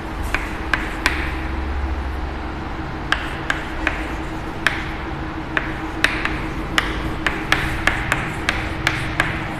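Chalk tapping on a chalkboard while words are written: a string of sharp, irregular clicks, roughly two a second, over a steady low room hum.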